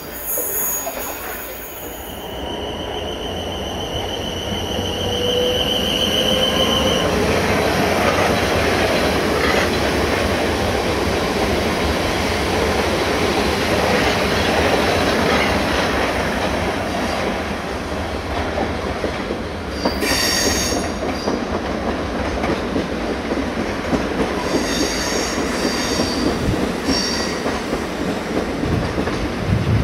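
Electric multiple-unit trains running through a station, including a London Midland Class 350/1 Desiro passing along the platform, wheels running on the track. A rising whine comes a few seconds in, and short high-pitched squeals sound about two-thirds of the way through and several times near the end.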